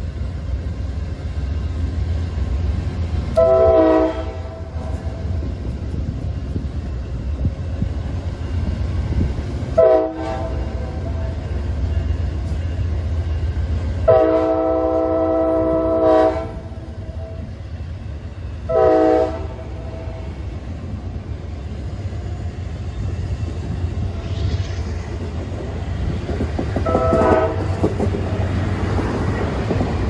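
Amtrak GE Genesis locomotive's multi-note air horn playing a horn show: a short blast, another short blast, a long blast of about two seconds, another short blast, and a fainter short toot near the end. Under it runs the steady rumble and wheel clatter of passenger cars rolling past.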